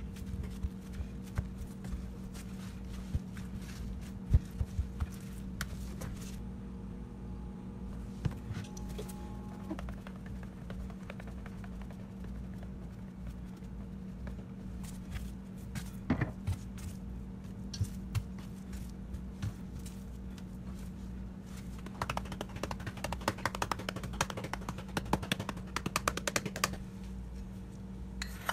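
Gloved hands patting and rubbing paper towels over raw catfish fillets on a cutting board, with scattered light taps and knocks, then a dense run of quick ticking and rattling a few seconds before the end. A steady low hum runs underneath.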